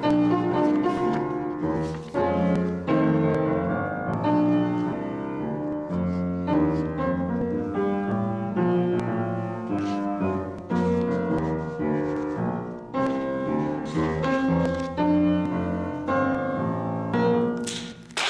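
Solo piano playing a slow postlude: single notes and chords that strike and ring away. A short noise comes just before the end as the music dips.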